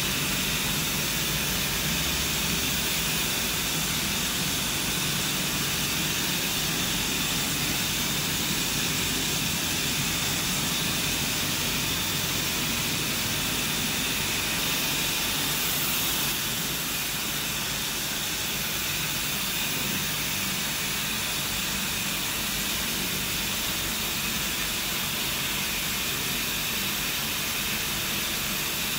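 UV flatbed printer running: a steady airy hiss and whir of machinery, a little quieter from about halfway through.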